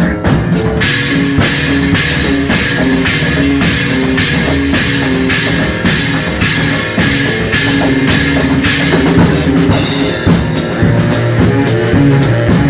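Instrumental improvised jam: a drum kit plays a steady beat, with a cymbal struck about twice a second over a repeating bass line and pitched melodic notes. Near the end the cymbal strokes become lighter and quicker.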